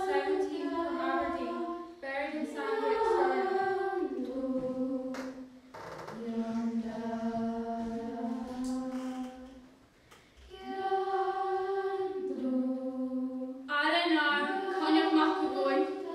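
Unaccompanied singing by a group of young voices: a slow song in phrases of long held notes, with short breaks between the phrases, the longest about ten seconds in.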